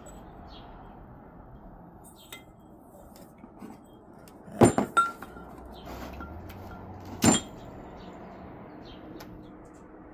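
Hard metal knocks and clinks: a quick cluster of sharp knocks about halfway through and one more single knock a couple of seconds later, with a short metallic ring, as tools or parts are handled and set down on a work surface.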